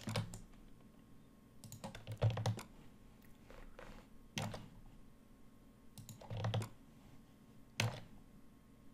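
Short clusters of clicks and taps from a computer mouse and keyboard, about six groups spread over several seconds.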